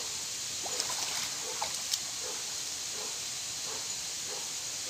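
Water sloshing and splashing as a man wades out of a shallow muddy stream, with a few sharp splashes in the first two seconds. Underneath is a steady high hiss and a faint short low call that repeats about every three-quarters of a second.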